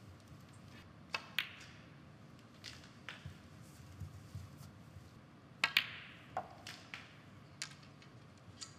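Snooker balls clicking: a series of sharp, separate knocks from the cue tip striking the cue ball and balls colliding on the table, the loudest pair a little over halfway through, over a faint steady hum of the hall.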